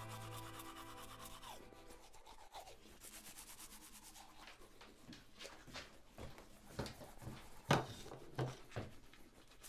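Teeth being brushed with a toothbrush: repeated short scrubbing strokes, starting about two seconds in.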